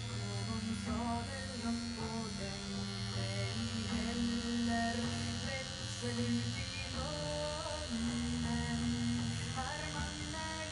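Tattoo machine humming steadily as it works a liner needle into skin, under background music with a singing voice.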